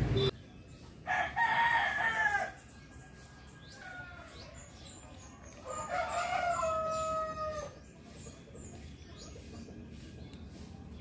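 Roosters crowing twice: a first crow about a second in, then a longer, lower crow about six seconds in.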